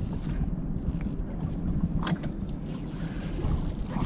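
A fishing reel's gears working under the load of a hooked fish, over a steady low rumble of wind and boat noise.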